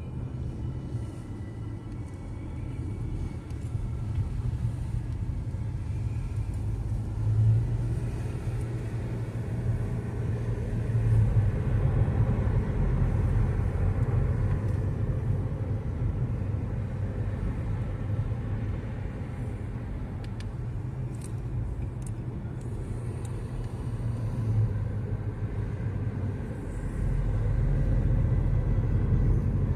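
Car cabin noise while driving: a steady low rumble of engine and tyres on the road, swelling and easing a little through the curves.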